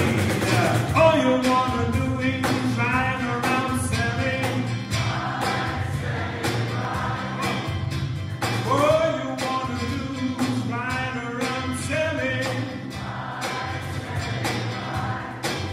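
Small band playing live: a man sings lead into a microphone over acoustic and electric guitars, bass and a cajón keeping a steady beat.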